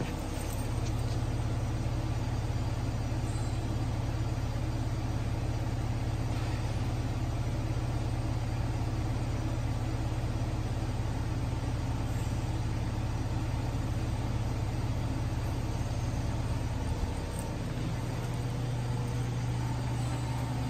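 2013 Nissan Altima's 2.5-litre four-cylinder engine idling steadily, heard at the exhaust tailpipes as an even low hum.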